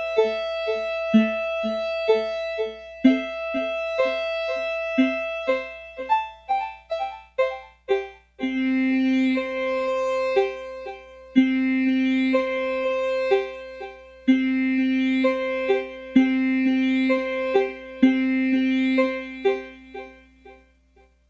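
Expressive E Osmose synthesizer playing a piano-like patch: quick repeated short notes over held tones. From about eight seconds in, a held lower note comes in with each new phrase, and the music dies away near the end.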